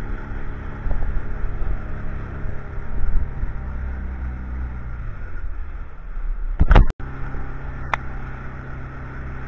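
Small fishing boat's engine running steadily at cruising speed, with water rushing along the hull. About seven seconds in there is a loud bump and a brief dropout, after which the engine hum is slightly higher.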